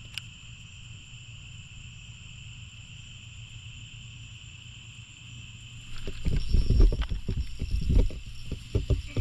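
Steady chorus of night insects, crickets or katydids, with a constant high buzz. About six seconds in, a run of loud, irregular knocks, bumps and splashy rustles starts as a fish is fought and handled.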